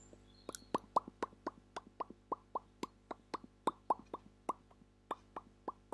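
Close mouth sounds into a lavalier microphone: wet clicking plops made with the mouth, about four a second in a steady rhythm, each short and falling slightly in pitch.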